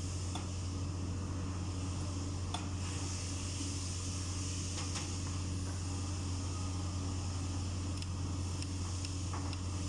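Steady low mechanical hum, like a running fan, with a few faint clicks now and then.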